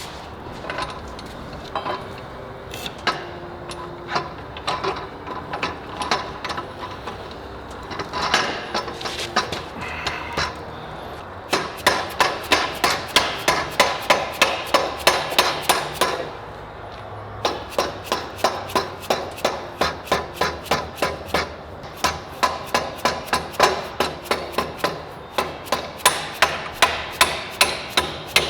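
Hammer blows on metal, scattered at first, then a steady run of about three strikes a second that stops briefly and starts again.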